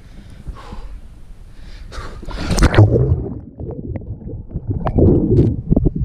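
A man taking a few sharp breaths, then a loud splash as he plunges into cold lake water about two seconds in. After that the sound is heard from underwater: muffled rumbling and bubbling with scattered knocks.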